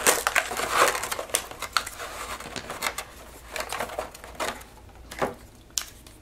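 Clear moulded plastic packaging tray crackling and clicking in irregular bursts as over-ear headphones are pried out of it by hand. The crackling is busiest in the first few seconds and thins out toward the end.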